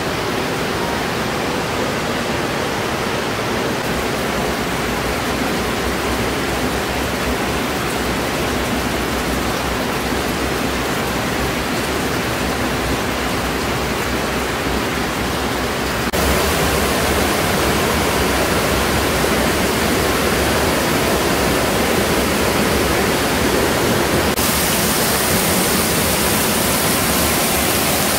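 Underground stream rushing and cascading over rocks inside a limestone cave, a steady rush of water. It gets louder a little past halfway and brighter again near the end.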